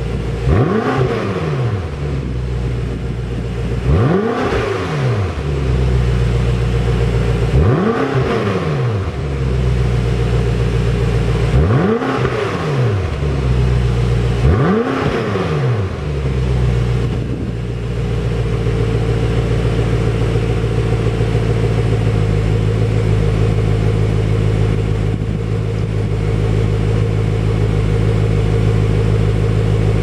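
BMW M5 F10's 4.4-litre twin-turbo V8 heard at the quad exhaust tips, revved in five short blips a few seconds apart, each rising and falling in pitch. It then settles to a steady idle for the second half.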